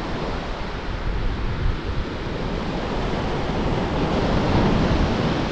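Waves breaking and washing up a pebble shore, with wind buffeting the microphone. The surf swells a little louder about four seconds in.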